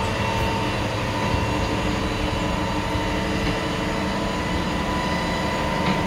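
Truck-mounted crane's diesel engine running steadily while the crane hoists a boulder, with a steady whine over the engine.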